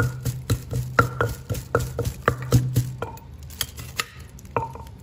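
Wooden pestle pounding chillies and garlic in a clay mortar, about four dull knocks a second, stopping about three seconds in. A metal spoon then scrapes and taps around inside the mortar.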